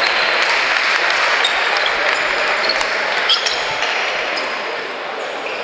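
Table tennis balls clicking off bats and tables in rallies, over a steady background hubbub.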